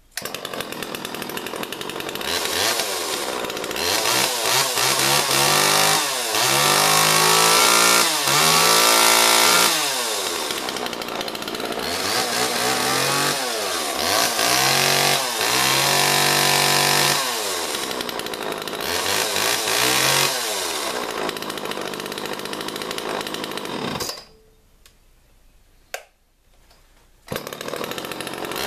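Homelite XL chainsaw's two-stroke engine running and being revved up and down several times, its pitch rising and falling. It drops out for about three seconds near the end, with a single click in the gap, then runs again.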